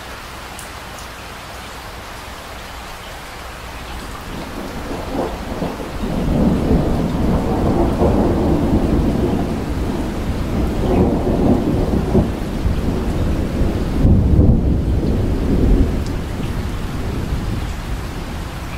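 Steady rain with a long roll of thunder that builds a few seconds in, rumbles loudest through the middle and dies away near the end.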